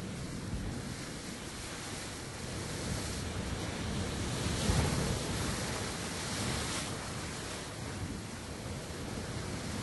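Sea waves breaking against a rock cliff: a continuous rushing wash of surf that builds to its loudest surge about halfway through, then eases back.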